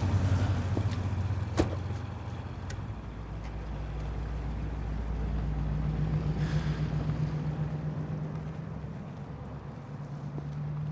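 Ambulance engine driving away, its steady hum dropping off as it goes, with one sharp click about a second and a half in.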